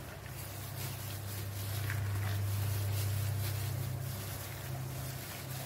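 Gloved hand squeezing and turning masala-coated pork pieces in a steel pot: faint soft squelches over a steady low hum that swells in the middle.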